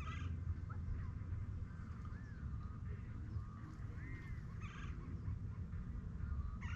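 Birds calling: several short rising-and-falling whistled notes and three brief harsh calls, one at the start, one about two thirds in and one at the end, over a low steady rumble.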